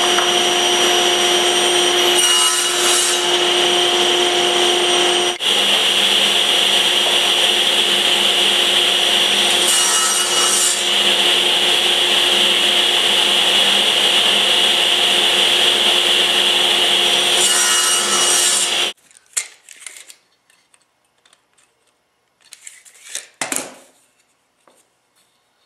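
Table saw running with a steady whine, its sound swelling briefly three times as the blade cuts through wood. It cuts off suddenly toward the end, leaving a few light knocks and handling sounds.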